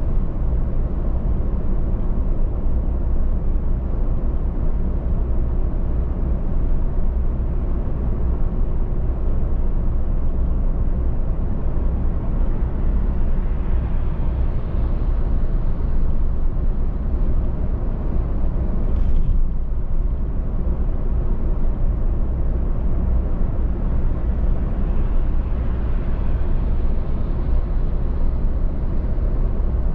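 A car driving at speed: a steady low rumble of engine and tyres on the road, with a brief sharper sound about 19 seconds in.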